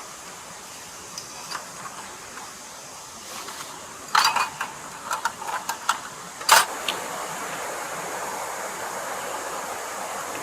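A run of sharp clicks and knocks, the loudest about six and a half seconds in, over a steady hiss of running stream water that grows a little louder after the knocks.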